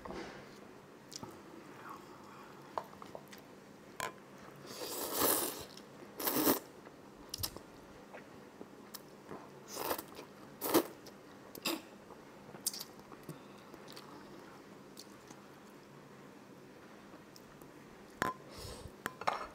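Close-miked eating: spicy instant noodles slurped in from chopsticks and chewed, with wet mouth clicks. The loudest slurping comes about five to six seconds in and again around ten to eleven seconds.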